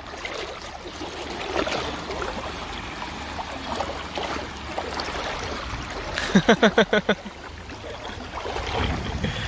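Shallow sea water sloshing and lapping around a Labrador retriever as it swims. About six seconds in, a short, quickly pulsing vocal sound breaks in for about a second.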